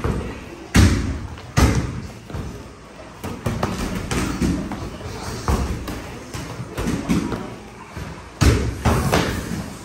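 Kickboxing sparring: irregular thuds of gloved punches and shin-guarded kicks landing on gloves, arms and body. The hardest hits come about a second in, again about half a second later, and twice near the end, with lighter hits between.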